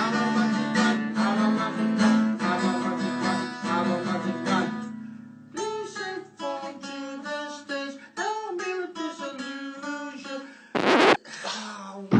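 Acoustic guitar strummed over a held low note; about halfway through the strumming thins out and a wavering voice line joins in. Near the end comes a short loud burst of noise, then a quick rising glide, like a cartoon sound effect.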